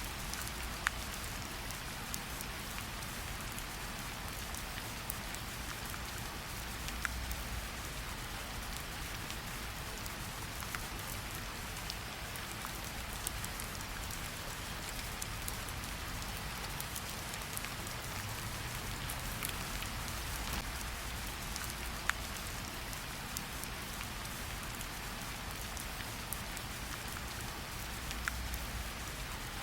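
Steady rain falling on a surface, a continuous hiss with scattered sharper drops landing close by.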